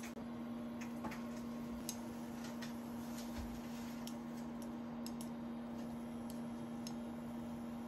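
Scattered light clicks of wooden chopsticks handling thin slices of seasoned raw beef on paper towels, over a steady low hum.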